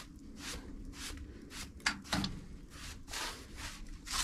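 Repeated rough scraping strokes, about two a second, as ash is cleaned out of a solid-fuel boiler, with two sharp knocks about two seconds in.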